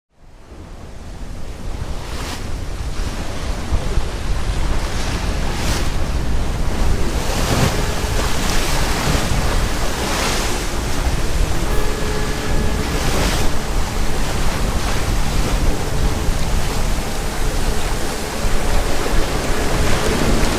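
Wind and sea waves at sea, with wind buffeting the microphone. The sound fades in at the start and then runs steadily, with several short louder surges.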